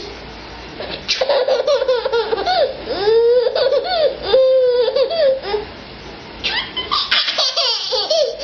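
A baby laughing hysterically in repeated bursts, one long bout from about a second in and a second, shorter bout near the end.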